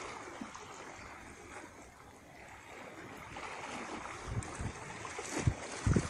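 Steady rush of flowing river water with wind, and a few low bumps on the microphone in the last two seconds.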